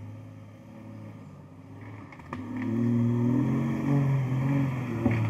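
Off-road Jeep engine running low, then revving up under load a little over two seconds in, with a sharp click as it picks up; the revs waver as it climbs.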